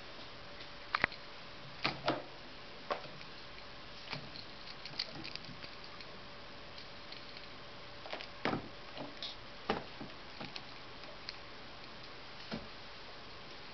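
Maine coon kittens playing on a carpeted cat tree: irregular light thumps, taps and scratches as they jump, land and bat at a wand toy, with a few louder thumps about two and eight seconds in.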